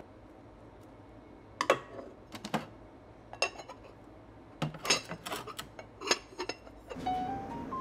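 Rice paddle tapping and scraping against an ohitsu rice container and a rice cooker's inner pot while leftover rice is scooped out: about a dozen short, sharp clinks and knocks at uneven intervals. Soft music comes in near the end.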